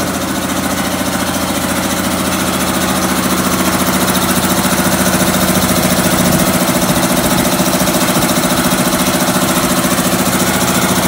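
Emax 120-gallon air compressor running steadily just after start-up: a 10 hp electric motor driving a cast-iron piston pump through a triple-belt drive, with a dense hum and a fast pulsing. Its level creeps up slightly.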